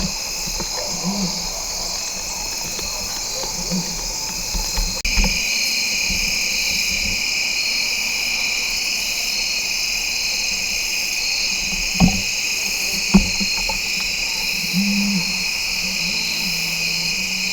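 Evening chorus of insects, crickets and katydids, a steady high-pitched trilling that grows louder about five seconds in. Two sharp clicks about a second apart come past the middle.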